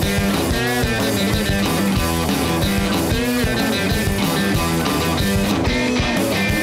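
Rock music with guitar and drums, with the drums hitting in a steady beat.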